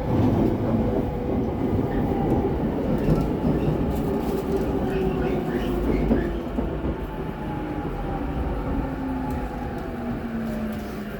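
Chuo-Sobu Line commuter train running, heard from inside the car: rumble and rail noise under an electric motor whine that falls steadily in pitch as the train slows.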